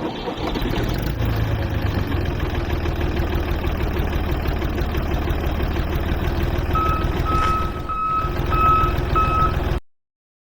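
A truck engine running steadily, joined about two-thirds of the way through by a reversing alarm beeping about five times. Both cut off suddenly just before the end.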